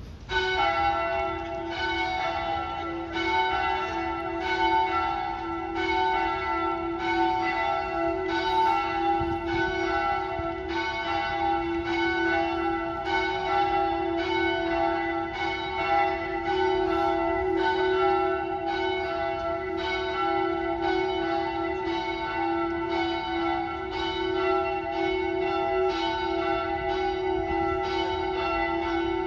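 Manchester Cathedral's church bells ringing, a fast, even run of strokes at about two a second, each note ringing on under the next. The ringing starts suddenly just after the beginning.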